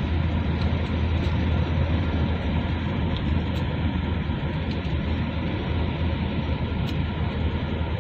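Steady road and engine noise inside a moving car's cabin: a constant low rumble.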